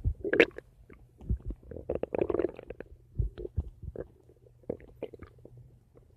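A person's stomach gurgling: a string of irregular short pops and bubbling gurgles, with a burst just after the start and a busier cluster around two seconds in, then sparser and fainter toward the end.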